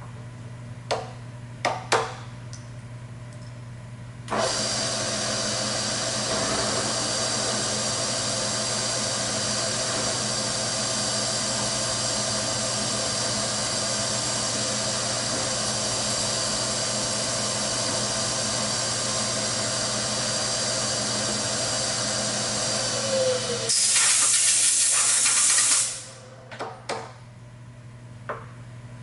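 Vertical milling machine spindle switched on about four seconds in, running steadily with a whine for about twenty seconds while the spheres are machined into D4 dice, then switched off and spinning down with a falling tone as a loud hiss lasts about two seconds. A few sharp knocks of handling at the vise come before and after.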